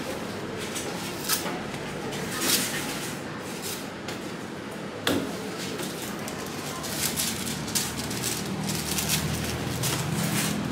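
A knife and durian husk handled on a wooden chopping block: a few sharp knocks and clicks, the sharpest about five seconds in. A low steady hum comes in during the second half.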